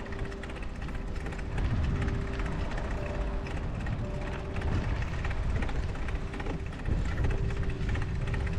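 Low, steady rumbling noise of wind and movement on the microphone while riding through a snowstorm, with faint sustained music notes coming and going underneath.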